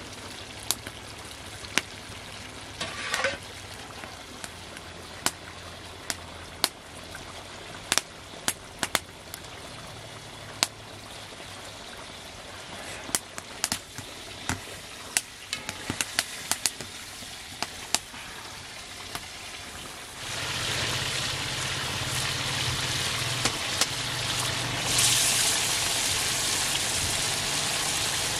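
Meat and tomato sauce cooking in a large cast-iron cauldron over a wood fire, with scattered sharp clicks and knocks. About two-thirds of the way through a loud, steady sizzle sets in and grows louder near the end.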